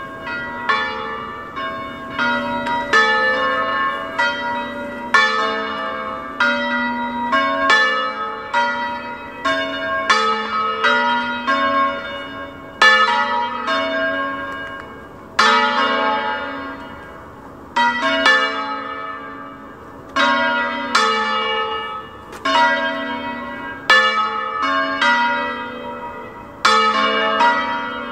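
Three church bells in A, cast by Carlo and Giuseppe Bonavilla in 1798, swinging in a full peal (distesa) that calls to mass. The strikes come unevenly, about once or twice a second and often overlapping, each ringing on and fading; the peal sets in right at the start.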